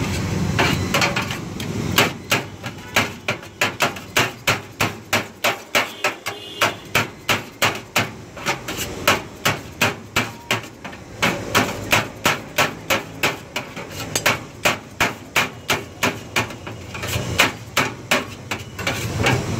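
Long knife chopping chicken shawarma meat on a large steel tray, the blade striking the metal in a steady run of sharp clacks, about two to three a second.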